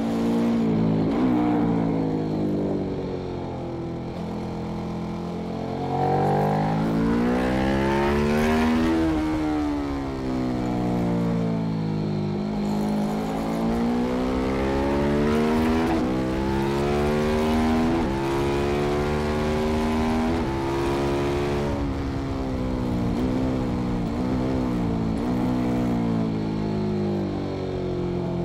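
KTM 1190 Adventure's V-twin engine with Arrow headers, ridden hard around a track. The revs climb and fall over and over as it accelerates through the gears and slows for corners, with a brief break in the pitch at each gearshift.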